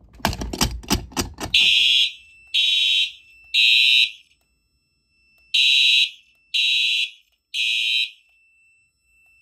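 Quick clicks and knocks as a pull station's handle is pulled. Then Simplex fire alarm horn strobes sound in the code-3 temporal pattern: three short blasts a second apart, a pause, then three more.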